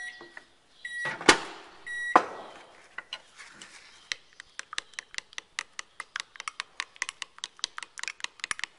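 Microwave oven beeping three times about a second apart as it finishes heating, with a loud clunk in between, then a metal spoon clicking rapidly against a glass measuring cup as liquid soft-bait plastic is stirred.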